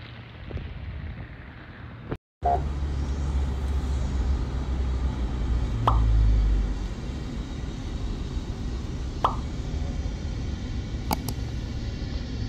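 Car interior noise while driving: a steady low engine and road rumble heard inside a Toyota's cabin, with a few short knocks. It comes in suddenly about two seconds in, after a brief spell of quieter outdoor noise.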